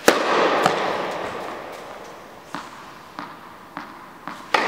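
Tennis serve: a sharp crack of racket strings on the ball, ringing on through the reverberation of an indoor tennis hall, with the ball landing on the hard court about half a second later. A few fainter bounces and knocks follow, then another loud racket strike echoes near the end.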